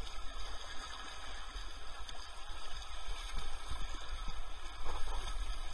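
River water gurgling and splashing around a kayak moving downstream, over a steady low rumble.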